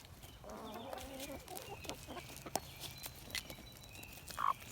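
Chickens clucking as they eat soaked feed pellets. A drawn-out, wavering call about half a second in, then scattered sharp pecking clicks and a short call near the end.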